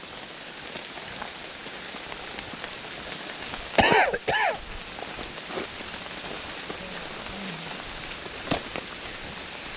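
Rain falling steadily. About four seconds in comes a brief, loud two-note call, and a sharp tap comes near the end.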